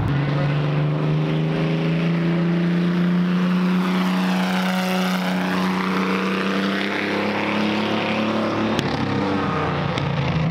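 Vintage race car's engine running steadily as the car drives past on a track, the pass-by coming about halfway through.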